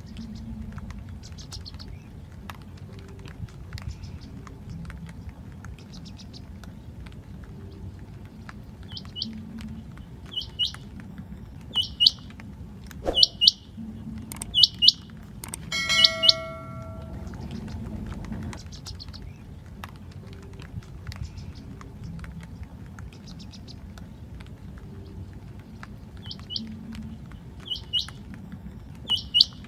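Rain quail calling: loud, sharp, high notes, mostly in pairs, repeated in runs about once a second, over a steady low background rumble. A short tone with several pitches sounds a little past halfway.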